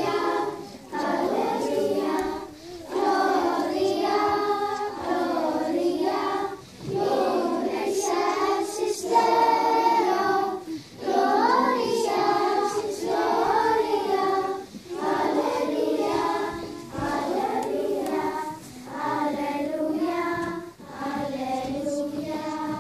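A children's choir singing a song, in phrases of about two seconds with short breaks between them.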